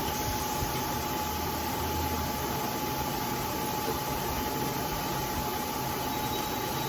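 Bridgeport vertical milling machine running steadily: an even noise with a constant whine and a low hum.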